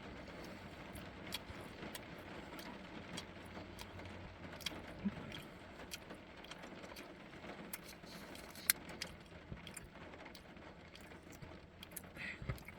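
A man chewing a beef meat stick: faint, irregular mouth clicks and smacks over a low steady hiss.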